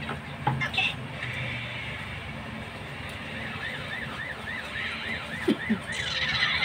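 An electronic alarm siren warbles, rising and falling rapidly about four times a second. It starts a little past halfway, over a low steady hum, with a few light clicks in the first second.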